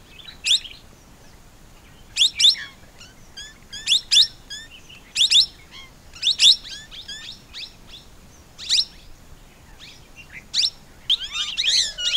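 Plum-headed parakeet calling: loud, sharp, high-pitched calls every second or two, with fainter short chirps between them, then a quick run of overlapping calls near the end.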